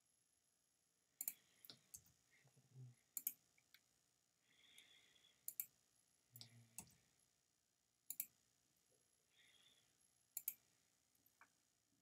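Computer mouse clicking: sharp, separate clicks spread through a very quiet room, several of them in quick pairs, with a few faint thuds between them.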